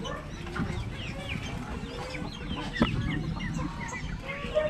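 Chickens clucking among many short, high chirping calls from other birds, over a busy background, with one sharp knock a little past halfway.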